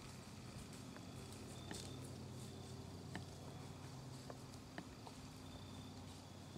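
Whitetail deer walking through dry leaf litter: faint, scattered crunches and rustles of hooves in the leaves.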